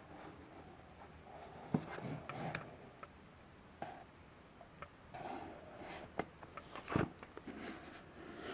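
Hands handling a cardboard gift box: the lid rubbing and sliding against the base, with scattered light taps and knocks on the wooden tabletop, the loudest about seven seconds in.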